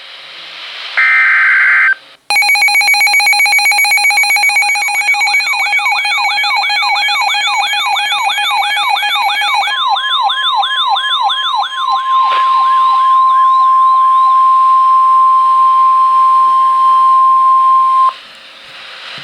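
Weather alert radios going off together for a severe thunderstorm warning. A short buzzy data burst comes first, then a rapidly pulsing alarm tone and a warbling siren overlap. From about ten seconds in, a single steady high attention tone holds and cuts off suddenly near the end.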